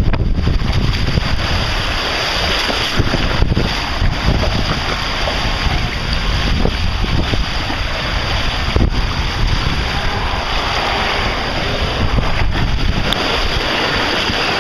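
Water rushing down a water slide under a rider, with heavy wind buffeting on the microphone of the rider-held camera.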